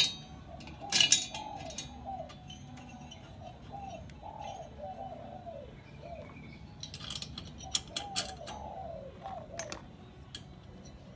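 A bird calling over and over in short rising-and-falling notes, with sharp metallic clinks and taps of hand tools on the engine parts now and then, the loudest about a second in and a cluster around seven to eight seconds in.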